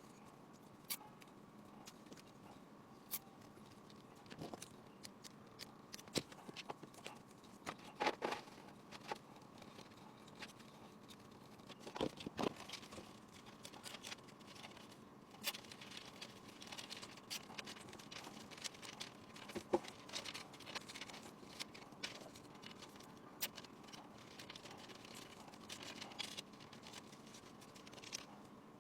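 Faint scattered clicks, taps and short rustles of hands handling PC parts, over a faint steady hum.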